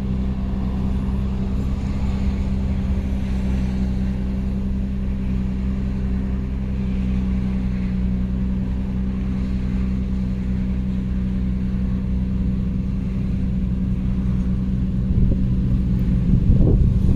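The 2007 Nissan Murano's 3.5 L V6 idling steadily with an even hum. In the last couple of seconds it gets louder and rougher.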